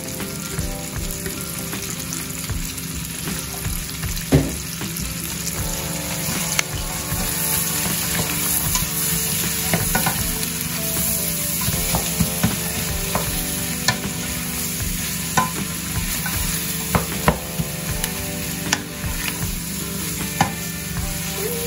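Sliced onions sizzling in melted butter in a stainless steel pot as they are stirred with a wooden spatula. The spatula knocks against the pot now and then.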